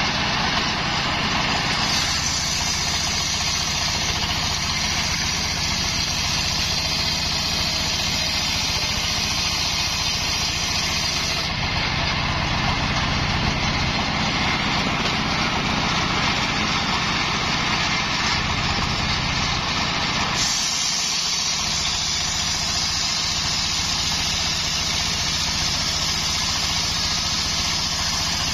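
Homemade engine-driven circular saw ripping a coconut palm log: a steady engine drone under the high hiss of the blade cutting, the cutting noise changing in tone a few times as the log is fed through.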